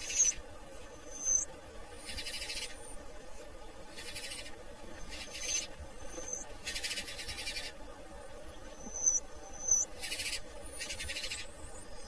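Small songbird chirps: about six very short, high notes scattered through, mixed with several raspy, buzzing bursts of half a second to a second each.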